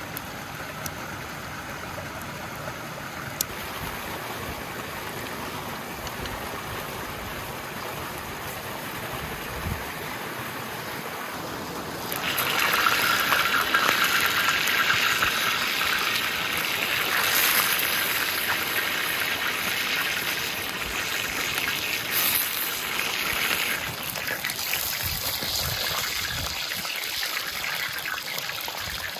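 Running water: a steady hiss that suddenly gets louder about twelve seconds in and eases off gradually near the end.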